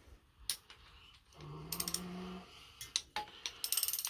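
Torque wrench ratcheting in quick runs of ticks as intake manifold bolts are tightened, with a few single sharp clicks in between. A low hum sounds for about a second near the middle.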